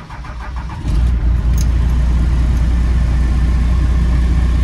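Ford pickup truck engine started with the key: the starter cranks briefly, the engine catches about a second in and then runs steadily with a strong, low rumble, heard from inside the cab.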